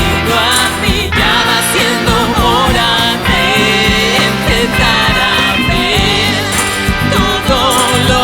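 Rock song with a female lead vocal over electric guitar, bass and a steady drum beat.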